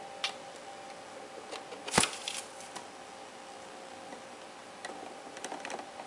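Ringneck parakeet's beak tapping and nibbling at the plastic of a coffee machine: a few sharp clicks, the loudest about two seconds in, then a quick run of small clicks near the end, over a faint steady hum.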